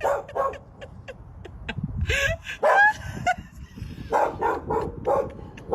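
Animals calling in short, repeated barks and yips, with a quick run of about four calls a second near the end.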